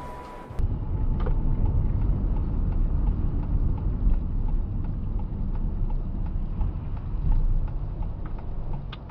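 Steady low rumble of a car's engine and tyres heard from inside the cabin, with faint clicks scattered through it. A stretch of music cuts off about half a second in.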